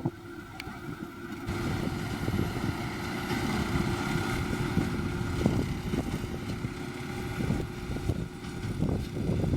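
John Deere 7530 tractor running under load while it pulls a Massey Ferguson 2270 square baler at work: a steady engine drone with a machine tone and irregular knocks from the baler. It is quieter for about the first second and a half.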